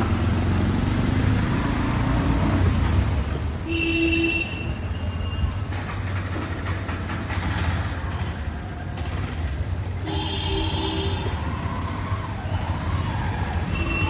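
Road traffic with a vehicle engine rumbling steadily and short horn toots, once about four seconds in and again about ten seconds in.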